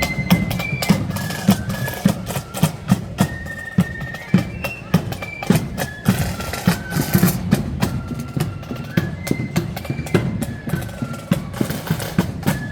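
Marching flute band playing a tune in unison on high flutes over steady snare and bass drum beats.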